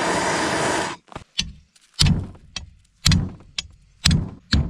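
A loud steady rushing noise that cuts off about a second in, then a run of sharp metallic strikes about twice a second, each ringing briefly: a steel flat bar being beaten over a trailer hitch to bend it.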